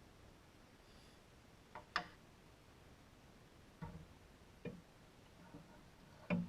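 A few faint, irregularly spaced clicks and knocks, the sharpest about two seconds in and just before the end, over a quiet background.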